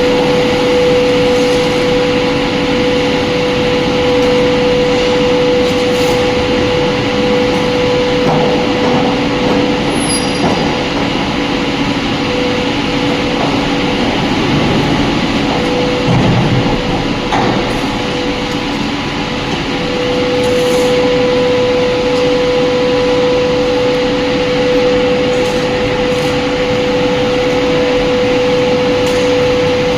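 Heavy industrial machinery in a melt shop running steadily, with a constant high hum over a wide mechanical noise; the hum fades for several seconds midway, then returns.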